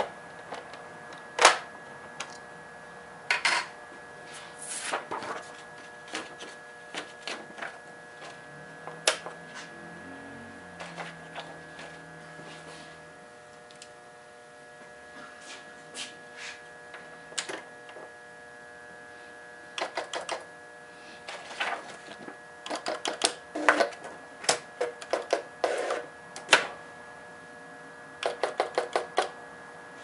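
Brother BP-30 electronic pen-plotter typewriter having paper loaded and fed: scattered sharp mechanical clicks and clacks, a faint low whirr about ten seconds in, then dense runs of rapid clicking in the second half. A steady electrical hum runs underneath.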